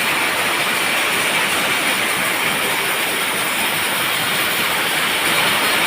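Heavy rain falling steadily as a dense, even hiss.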